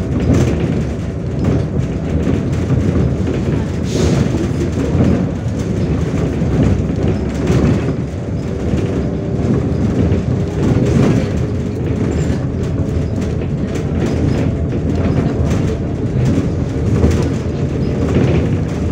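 Inside a MAZ 105 articulated city bus under way: steady engine and drivetrain drone with road rumble. Short knocks and rattles from the body come through it.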